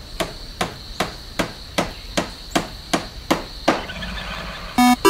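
Hammering sound effect of a spaceship being repaired: about ten evenly paced hammer strikes, two to three a second, that stop a little before four seconds in. Near the end a run of short electronic beeps starts.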